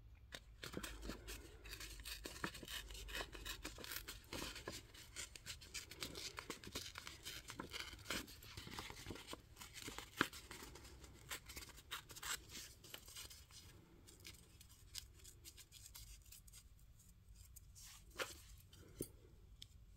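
Paper being torn and picked at by hand in small bits around the edges of a small piece, giving faint scratchy tearing and rustling that thins out in the last few seconds.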